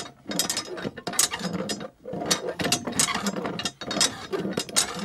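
Miniature hand water pump being worked by its handle: rapid clicking and rattling in bursts, with short breaks about every two seconds.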